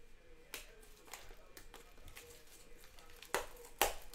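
Plastic shrink-wrap being torn and peeled off a sealed Panini One trading-card box, a run of crinkles and crackles with two sharper, louder ones near the end.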